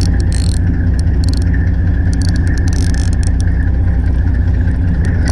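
Boat engine running steadily at idle, a deep even hum, with light ticking from a baitcasting reel being cranked in.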